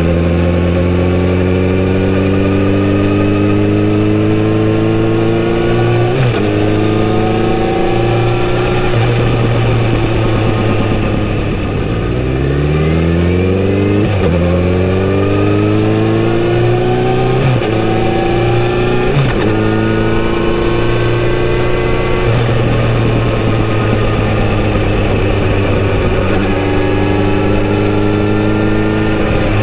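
Kawasaki Z900RS inline-four engine on its stock exhaust, heard from the rider's seat, pulling up through the gears with the revs rising and dropping back at each upshift. About twelve seconds in the revs fall away as it slows, then climb sharply as it accelerates again and shifts up, before it settles to a steady cruise.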